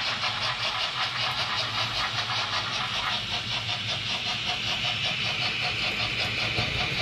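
H0-scale model steam locomotive running on the layout's track, with a rapid, even ticking over a steady hum.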